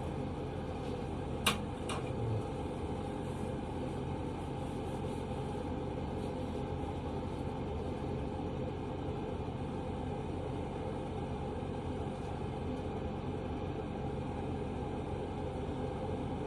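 Steady mechanical hum of room background noise, even throughout. One sharp click about a second and a half in and a soft knock just after two seconds, from handling the stripped Glock pistol's parts.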